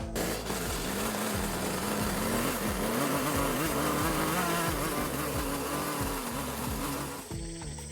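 Two-stroke chainsaw running at high revs and cutting wood, its engine pitch wavering under load. It cuts in suddenly and drops away near the end.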